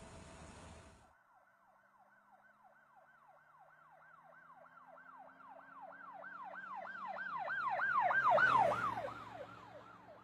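Emergency vehicle siren in a fast yelp, about three sweeps a second, growing steadily louder to a peak near the end and then fading as the vehicle passes.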